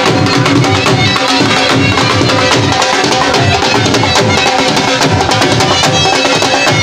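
Dhol drums beaten in a fast, steady rhythm, with a melodic line sounding over the drumming.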